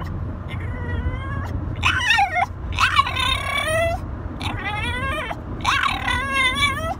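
French bulldog 'talking': a run of four or five drawn-out whining, yowling cries, each swooping up and then down in pitch, getting louder after the first faint one.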